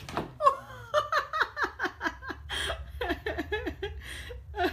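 A person laughing hard: a long, quick string of short laughs, several a second, each dropping in pitch.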